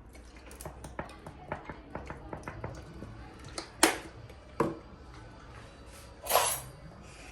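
Kitchen handling clatter: a string of light clicks and taps, then a couple of sharp knocks and a longer clattering rattle near the end, like bowls, utensils and pans being handled.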